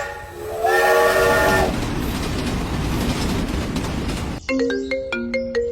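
A multi-tone train horn sounds one held blast of about a second, then gives way to the steady rumble of a passing train. Short plucked music notes start near the end.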